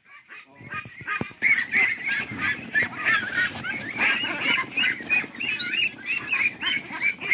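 A crowded flock of white meat ducks calling all at once, many short overlapping calls, starting about a second in. The ducks are agitated at being herded and caught by hand in their pen.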